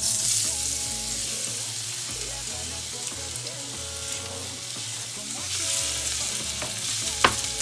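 Food dropped into hot olive oil in a small frying pan, setting off a loud, steady sizzle that starts suddenly, with a sharp clink of a utensil on the pan near the end.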